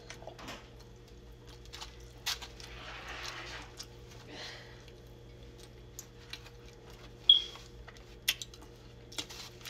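Mouth sounds of someone chewing chicken, with scattered small clicks and rustles from handling a paper plate and plastic fork. A sharp click with a brief squeak about seven seconds in is the loudest sound, over a steady low hum.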